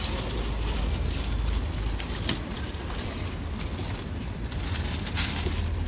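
Outdoor background noise: a steady low rumble with an even hiss and a few short clicks.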